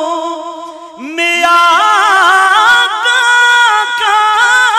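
A man singing an Urdu naat (devotional poem) into a microphone. A held note fades out about a second in, then a new long phrase begins with an upward slide and carries on in sustained, ornamented notes.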